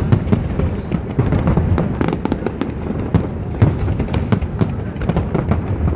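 Fireworks display going off in a rapid, unbroken string of bangs and crackles, several a second.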